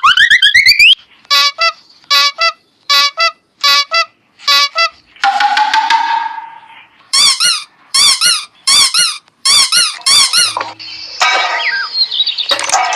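A string of cartoon sound effects: a rising boing-like glide, five quick pairs of squeaks, a sliding tone, then a run of fast warbling chirps.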